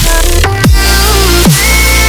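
Electronic dance music with heavy bass and falling synth sweeps about every three-quarters of a second.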